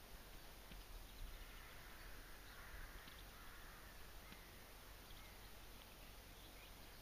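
Near silence: faint outdoor ambience, with a faint bird call about two to three seconds in.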